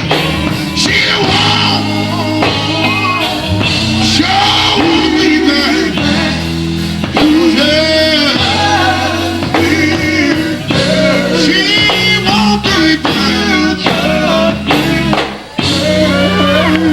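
Live gospel quartet music: singing voices carrying the song over a band with steady bass notes underneath. The music dips briefly near the end.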